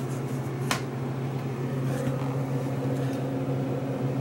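A steady low machine hum, with one sharp click just under a second in.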